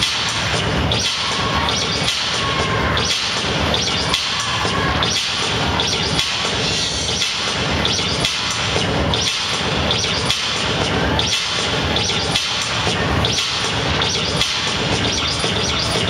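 Dance music with a heavy, steady beat: low thuds about twice a second and a brighter hit about once a second, playing for a stage dance routine.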